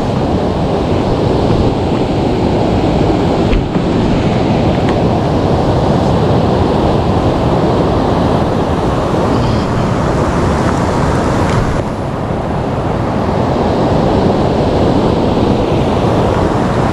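River water rushing loudly and steadily over rocks close to the microphone, a dense even roar with no break.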